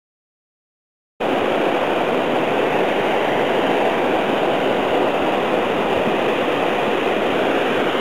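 Steady, even rushing noise that cuts in abruptly about a second in and stops abruptly at the end.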